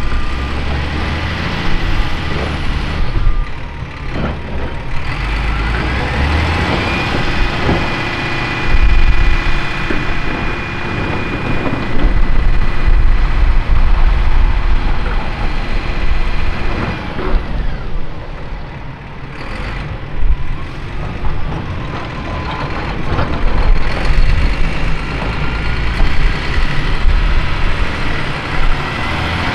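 Diesel engines of a Volvo ECR235E excavator and a Volvo A30G articulated dump truck working during loading. The low engine noise runs throughout, with a high whine that rises about seven seconds in, holds, and drops away about ten seconds later.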